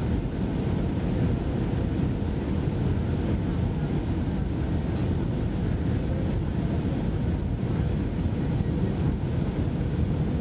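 Steady low rumble inside an airliner cabin as the plane lands: engine and airflow noise, even throughout.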